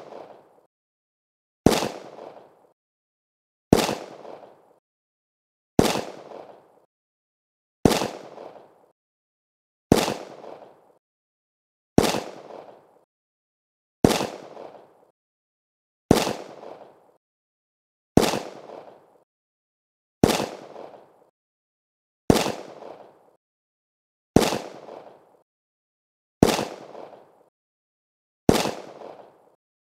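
Handgun shots repeated one at a time, about one every two seconds. Each is a single sharp crack with a short decaying echo.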